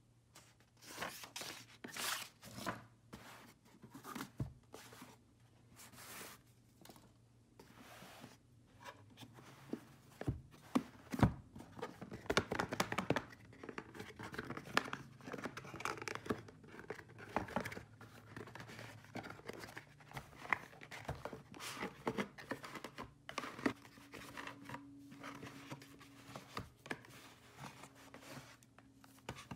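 Paper and cardboard packaging being handled: a paper receipt rustled, then a cardboard gift box worked open and its tissue-paper wrapping crinkled. It comes as an irregular run of sharp rustles and crackles that grows denser about ten seconds in.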